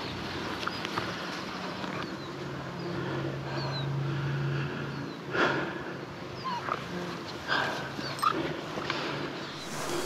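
A dog whimpering with short, thin, high whines, and a few louder sudden sounds about halfway through and near the end.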